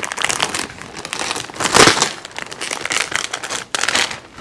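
Thin plastic protective wrap crinkling and rustling as it is pulled off a headlight housing, with a louder rustle a little under two seconds in.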